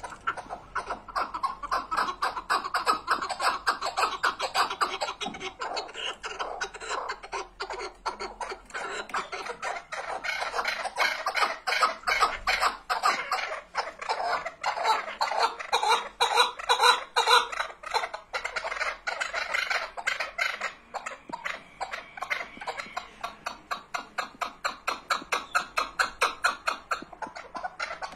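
Chukar partridge (keklik) calling without a break: a rapid, rhythmic run of clucking 'chuk' notes, rising and falling in loudness.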